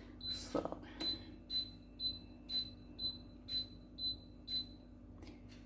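Cooktop touch controls beeping at each press, about two short beeps a second, nine in a row, as the hob is switched on and its heat stepped up to warm the frying pan.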